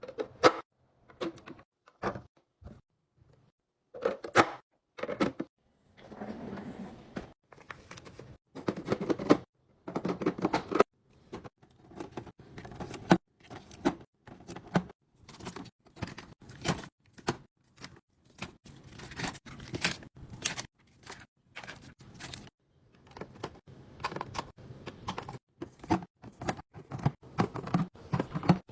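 Kitchen items being handled and set down: a quick, irregular run of clicks, knocks and clatters, with longer rustling stretches about six and ten seconds in.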